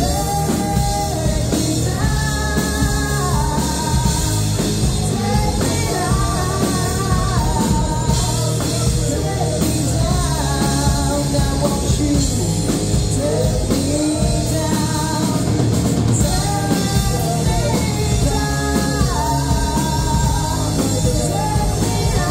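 Live rock band playing, with a woman singing lead into a microphone over electric guitars, keyboard and a drum kit.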